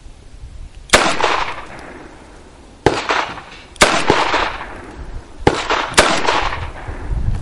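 Five shots from a .22 revolver, fired at uneven intervals, each a sharp crack with a short echo trailing off after it.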